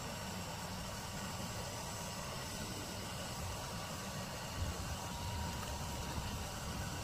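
Steady whirring hum and hiss of an electric heat gun running on the table, with a soft knock about four and a half seconds in.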